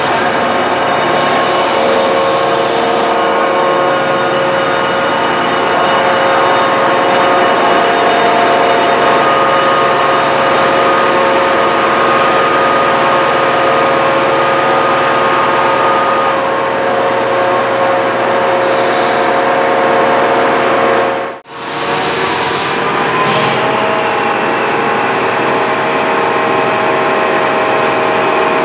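Class 68 diesel-electric locomotive's Caterpillar V16 engine running at a standstill: a steady hum with several held tones. It is broken twice by a short high hiss, about a second in and again just after a brief drop-out about three quarters of the way through, after which the running continues much the same.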